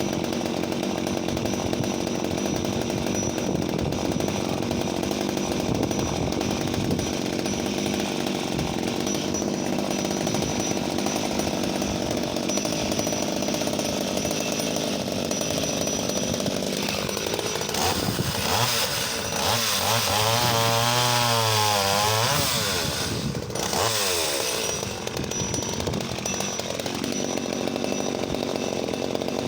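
Vintage Danarm 1-36 MK3 34cc top-handle two-stroke chainsaw running while cutting wood. Its engine note is steady for most of the time; about two thirds of the way in it revs up louder with a wavering pitch for several seconds, then drops back.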